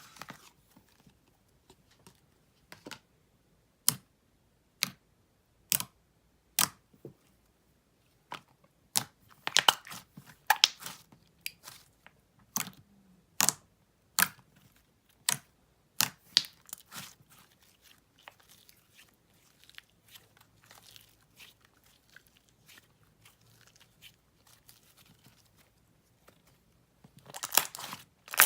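Thick, glossy slime being poked, pressed and stretched by hand, giving sharp sticky pops and clicks. The pops come about once a second at first, then bunch into denser crackling, and later turn into softer, fainter crackles before a louder crackly stretch near the end.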